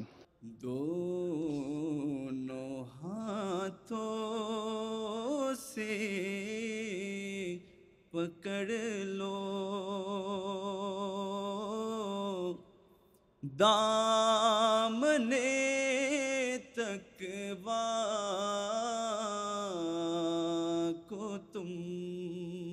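A man's solo voice chanting an Urdu nazm (devotional poem) unaccompanied, in long drawn-out melodic phrases with a wavering, ornamented pitch. He pauses briefly between phrases, about 8 and 13 seconds in.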